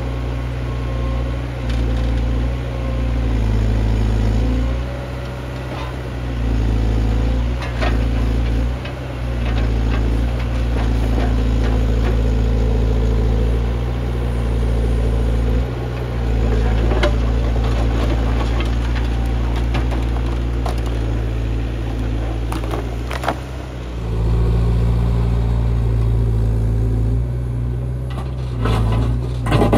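Menzi Muck A61 4x4 walking excavator's diesel engine running, its note rising and falling every second or two as the hydraulics are worked, with a sharp knock now and then.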